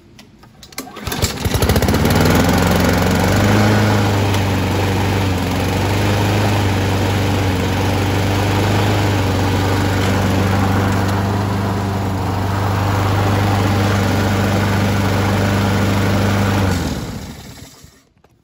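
Craftsman mower's Honda GCV single-cylinder engine pull-started on choke: a short rattle of the recoil pull about a second in, catching almost at once, then running steadily at a constant speed. Near the end it is shut off and winds down.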